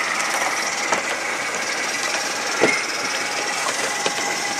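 G-scale model electric locomotive of the Swiss 'Crocodile' type running past on outdoor garden track. It makes a steady high whine, with a few sharp clicks about a second in, near the middle and at the end.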